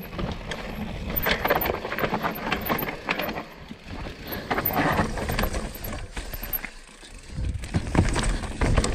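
Mountain bike riding down a rocky dirt trail: tyres rolling and crunching over dirt and stones, with quick knocks and rattles from the bike over the bumps.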